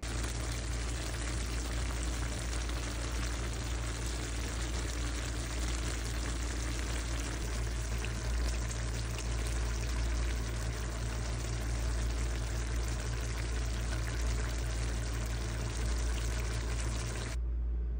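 Sauce simmering in a clay tagine: a steady hiss with faint crackles over a low hum, cutting off suddenly near the end.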